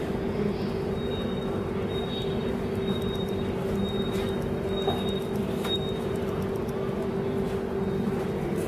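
Steady hum and rumble inside a Shatabdi Express executive-class chair car coach, with a constant low tone and a faint, thin high-pitched whine from about one to six seconds in.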